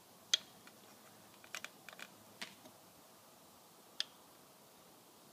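Scattered light clicks and taps of plastic model parts as an engine is fitted onto the wing of a Skymarks 777-200 snap-fit model, with sharper clicks about a third of a second in and about four seconds in.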